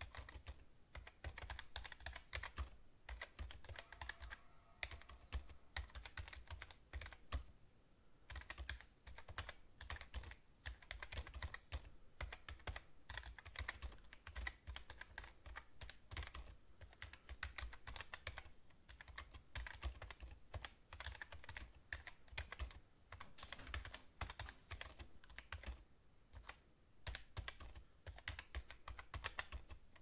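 Fast typing on a computer keyboard: rapid, irregular key clicks with a few brief pauses.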